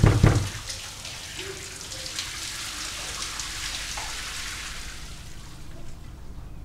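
A few fist knocks on a closed door at the very start, then a shower running behind the door, a steady hiss of water that dies away about five and a half seconds in.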